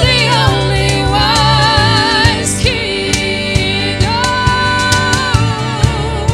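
Live church worship band playing a slow song: women singing long held notes with vibrato over keyboard, violin and a steady percussion beat.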